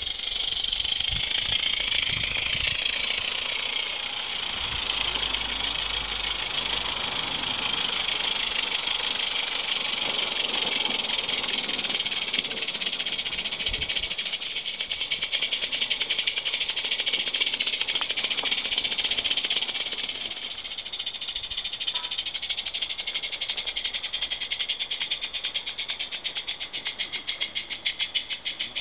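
16 mm scale Mamod live-steam locomotive with a gas burner and a prototype chuff pipe, running fast with a rapid, even exhaust beat. The separate chuffs stand out more clearly near the end.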